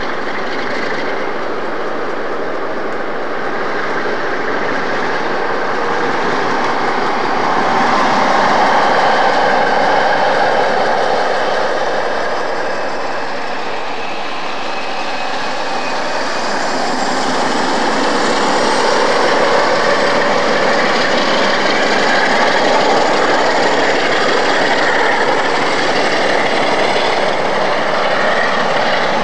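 Class 47 diesel-electric locomotive's Sulzer twelve-cylinder engine working hard as it pulls away hauling a failed HST, passing close and then moving off. The sound swells about eight seconds in and again in the second half.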